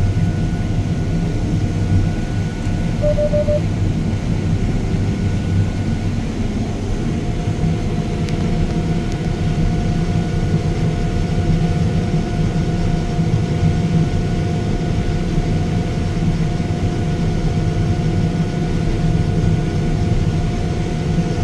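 Farm harvest machine's diesel engine running steadily, heard from inside the cab: a low, even drone with a faint steady whine above it.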